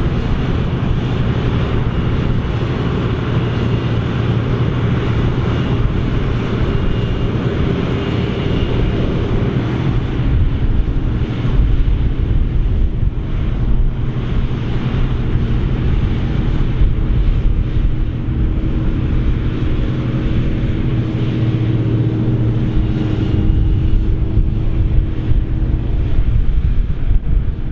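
Krone BigX 700 self-propelled forage harvester running hard under load while chopping maize: a loud, steady heavy machine sound with a few held tones above it.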